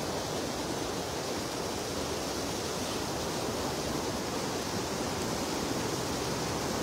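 Steady rushing of a shallow river flowing over stones, an even wash of water noise with nothing standing out.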